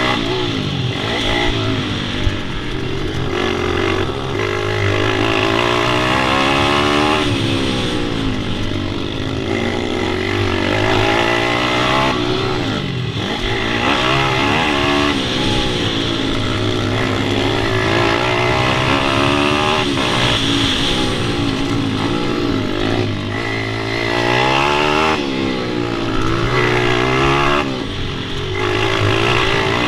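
Pit bike engine revving up and down over and over, the pitch climbing as it accelerates and dropping back off the throttle every few seconds.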